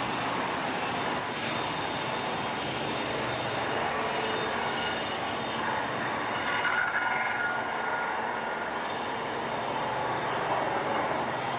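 Steady din of sawmill machinery running: heavy roller conveyors and saws, with a brief high squeal about seven seconds in.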